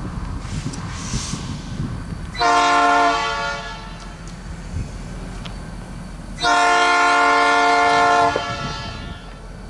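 Nathan P3 three-chime locomotive air horn (new-cast bells) sounding a mellow chord: a short blast, then a longer blast of about two seconds, over a low rumble.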